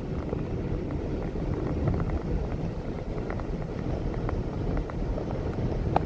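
Steady low rumble of a car driving on a snow-covered highway, heard from inside the cabin: tyre noise on the snowy, slushy pavement with the engine underneath, and a few faint ticks.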